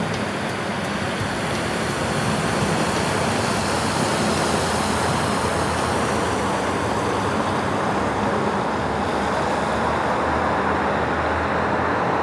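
Motor vehicles on the move, a steady mix of engine and road noise from a motorcycle escort and motorcade. A low engine hum grows stronger in the second half.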